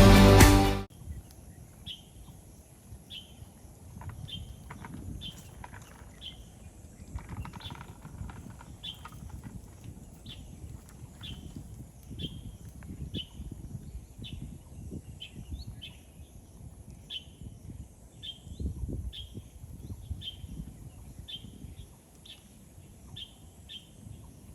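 A bird calling a single short, high chirp over and over, about once a second, over a low rumble of outdoor noise. Music fades out in the first second.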